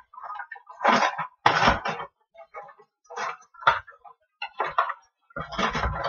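A kitchen utensil knocks and scrapes against a pot in irregular short bursts, with a sharp click about a second and a half in.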